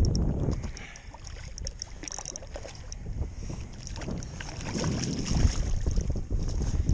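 Wind rumbling on the microphone, with small water splashes from a hooked crappie thrashing at the surface beside a kayak; a sharper splash comes about five seconds in.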